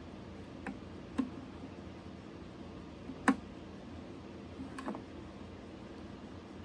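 A few sharp clicks and taps of small hard parts being handled, four in all, the loudest about three seconds in, over a steady low hiss.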